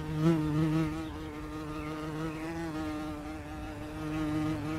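A flying insect buzzing steadily, its pitch wavering slightly, loudest just after the start and again near the end.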